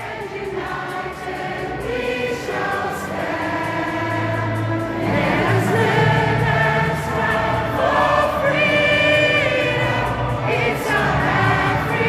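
A large mass of voices singing a national anthem together in an arena, swelling steadily louder.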